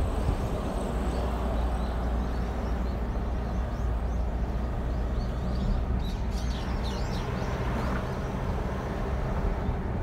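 Steady low rumble of a car's engine and tyres heard from inside the cabin while driving. A few faint high chirps come through in the middle.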